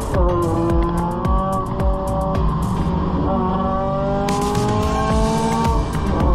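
Honda Civic track car's engine heard from inside the cabin under hard acceleration: a gear change right at the start, then revs climbing steadily for about six seconds to another upshift near the end.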